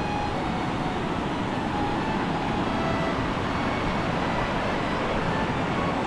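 Steady roar of falling water from Sipi Falls, a high waterfall.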